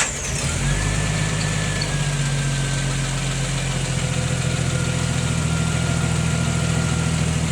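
Jeep Wrangler engine idling steadily just after starting, once a loose battery-to-fuse-box connection has been tightened. A faint high whine runs along with the idle, drifting slightly lower in pitch.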